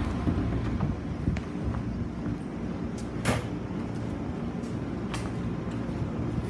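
Train standing at a station platform: a steady low rumble with a few faint clicks, and one short sharp hiss or clack about three seconds in.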